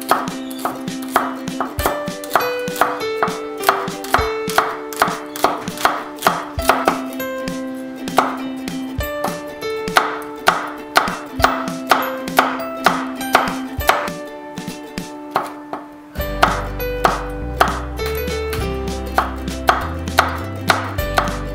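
Santoku-style kitchen knife slicing spring onion and chillies on a wooden cutting board: sharp, even knife strokes about three a second.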